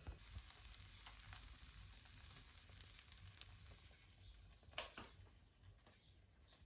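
Faint sizzling of Derbyshire oatcake batter cooking in a hot pan, with a few light clicks and one sharper tap about five seconds in.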